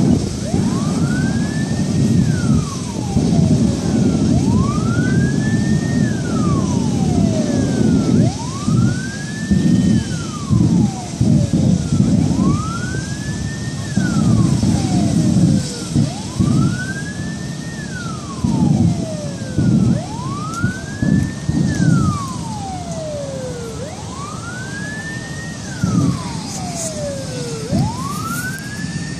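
Emergency vehicle siren wailing: a slow rise to a high pitch and a longer fall, repeating about every four seconds, over an irregular low rumble.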